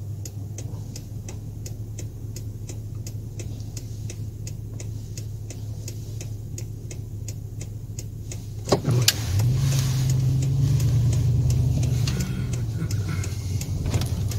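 Car turn signal ticking about three times a second inside the cabin over the low hum of the car's engine and road noise. About nine seconds in the ticking stops, there is a sharp thump, and the engine hum grows louder and a little higher as the car drives on.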